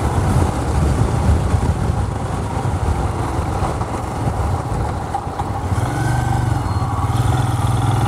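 Royal Enfield Himalayan's single-cylinder engine running while riding, mixed with wind noise. The engine's low, steady note stands out more clearly in the last two seconds.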